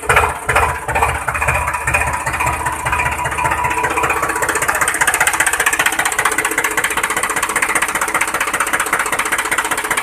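An engine running. A slow, low chugging of about two beats a second fades over the first two seconds into a steady, buzzy drone.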